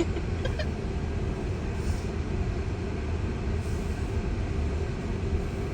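Steady low rumble of road and tyre noise heard inside the cabin of a slowly moving Tesla electric car, with no engine sound.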